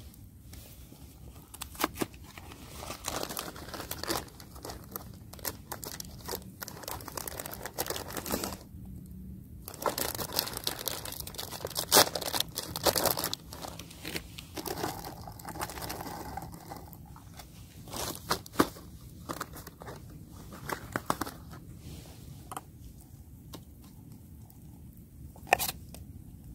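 Cardboard box and packaging being handled close up, crinkling and tearing in irregular bursts, with scattered sharp clicks and rustles as raisins are opened and shaken out.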